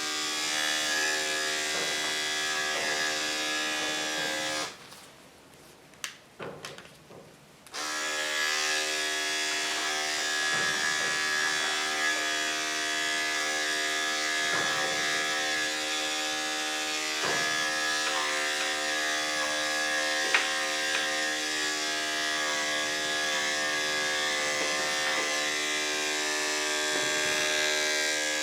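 Electric dog grooming clippers running with a steady hum. They switch off about five seconds in and come back on about three seconds later.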